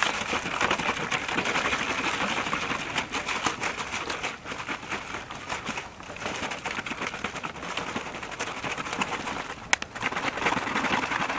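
A bottle of water mixed with egg being shaken hard, the liquid sloshing in fast, rhythmic strokes with a few brief pauses.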